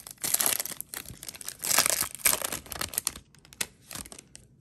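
A Donruss Optic football card pack's foil wrapper being torn open and crinkled in the hands, in bursts of crackling that are loudest about two seconds in, then a few lighter rustles.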